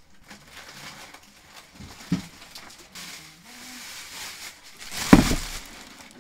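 Plastic grocery bags rustling and crinkling as they are handled, with a knock about two seconds in and a heavier thud about five seconds in as a load is set down.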